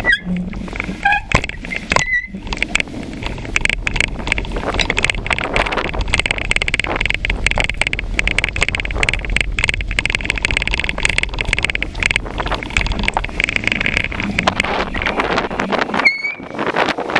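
A bicycle rattling over paving stones, its plastic front basket clattering, with wind on the microphone. A few short high squeaks come near the start and again near the end.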